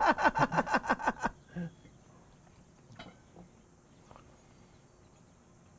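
A man's voice in short, rapid pulses for about the first second, then low-level quiet with a few faint knocks.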